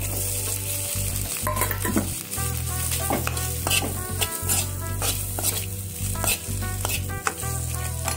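A metal spoon stirring and scraping food around a black non-stick pan while the spiced mixture fries and sizzles, with many short scrapes and knocks of the spoon against the pan.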